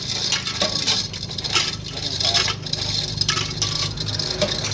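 Irregular light metallic clinks and taps of hand tools and loose metal parts being handled during engine work.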